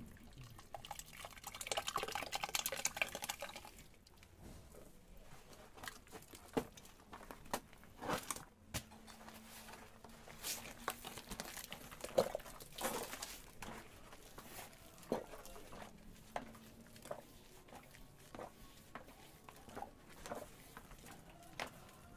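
Liquid plaster poured from a bucket into a plaster mold's filling hole, a thick gurgling pour for about three seconds near the start. Then scattered knocks, scrapes and taps as the bucket and molds are handled.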